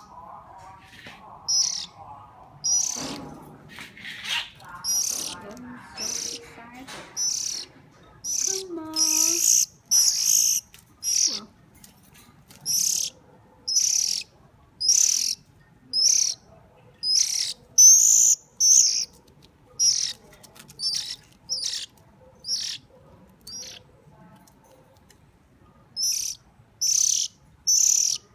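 A hungry bird's begging calls: loud, high-pitched chirps repeated about once a second, with a pause of about two seconds near the end.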